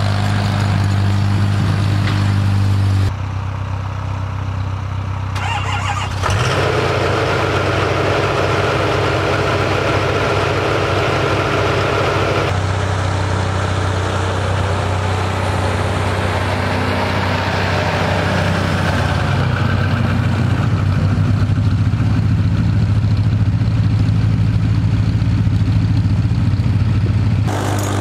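Farmall M tractor's four-cylinder engine running steadily while pushing snow, its sound changing abruptly a few times.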